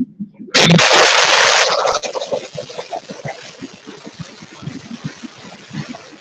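A group of schoolchildren applauding, starting about half a second in: loud for a second and a half, then dropping to a quieter, patchy clapping.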